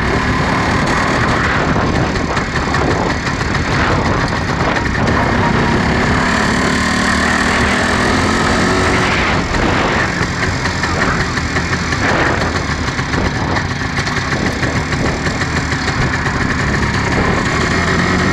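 1962 MZ 250 cc single-cylinder two-stroke motorcycle engine running while the sidecar outfit rides along, its revs rising and falling.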